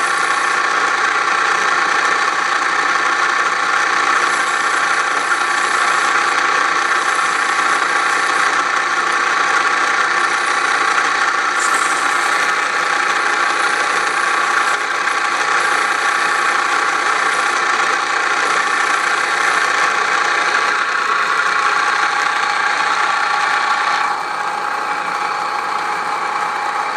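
Wade C.A.V. No. 1 plain turning lathe running, a steady, really loud mechanical drone of many tones with some rattle; the noise comes from its electric drive motor rather than the lathe itself. It drops a little and turns duller a few seconds before the end.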